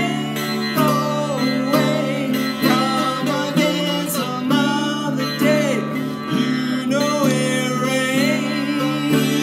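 Sitar with gliding, bending notes drawn by a metal slide over steady ringing drone strings, and a baritone ukulele strummed about once a second. A man sings along.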